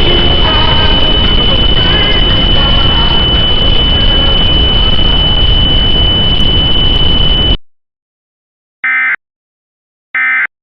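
Loud harsh static with a steady high-pitched whine through it, cutting off abruptly about three quarters of the way in; then two short, identical bursts of Emergency Alert System SAME data tones a little over a second apart, the end-of-message signal that closes an EAS alert.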